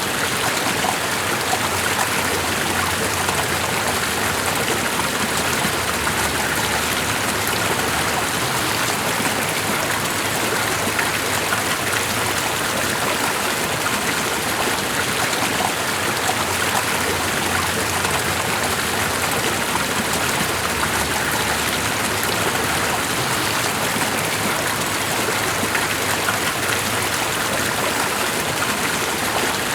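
Running water, a steady even rush with no let-up.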